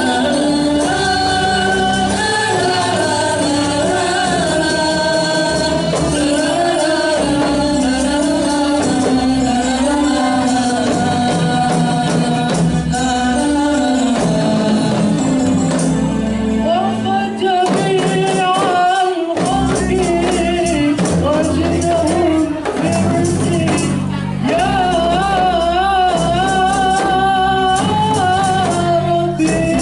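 Samroh music: voices singing a melody over rebana frame drums and a jingling tambourine beat.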